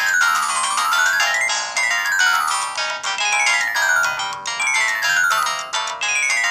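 Samsung SGH-X200 mobile phone playing a ringtone melody through its small loudspeaker. It sounds tinny with almost no bass, built from quick falling runs of notes that repeat about every second and a half, with one rising run about a second in.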